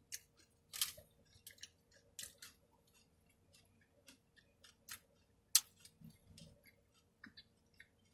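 Close-up chewing of a crunchy Doritos taco shell: irregular crisp crunches and wet mouth clicks, the sharpest about five and a half seconds in.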